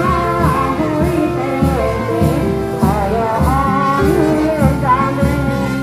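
Music with a singing voice carrying the melody over a steady beat.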